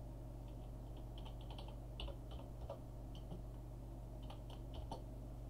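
Computer keyboard being typed on: short runs of key clicks with brief pauses, over a steady low electrical hum.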